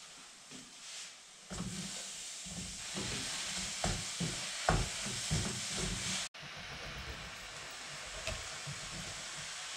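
Sliced mushrooms sizzling in a hot frying pan, the hiss starting suddenly about a second and a half in, with a few short clacks in the middle. After a brief dropout, a steady hiss goes on.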